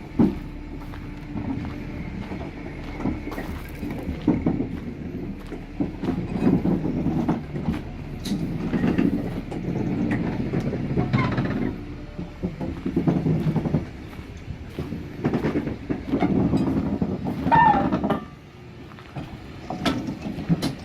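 Class 306 electric multiple unit being shunted slowly along the track, its wheels and couplings clanking and knocking irregularly over the rail joints, with a couple of brief wheel squeals.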